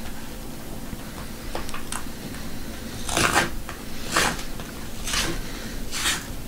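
A tool drawn along the edge of a cardboard photo mailer to slit it open: four short scraping strokes of paper and card tearing, about one a second, beginning about three seconds in, after a few faint handling ticks.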